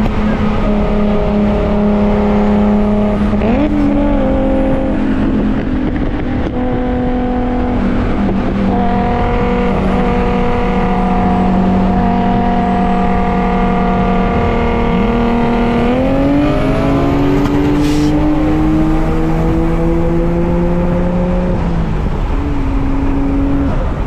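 A car engine pulling steadily while driving, with road noise. Its pitch holds level for stretches, steps up about a few seconds in, and climbs as the car accelerates about two-thirds of the way through.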